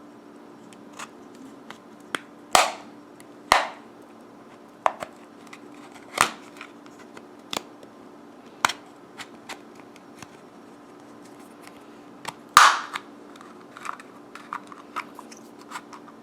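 Sharp plastic clicks and knocks as a small bicycle alarm unit is handled and worked on, spaced irregularly with four louder knocks among them. A faint steady hum runs underneath.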